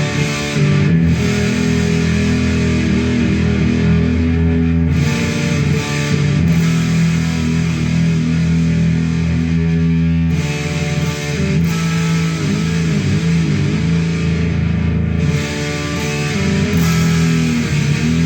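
Electric guitar with humbucker pickups played through a home-built distortion/fuzz pedal made from a Fisher-Price 826 cassette player's amplifier circuit. Thick, heavily distorted chords are held and changed, with a fresh chord struck about ten seconds in. The fuzz has what is called "a nice sizzle".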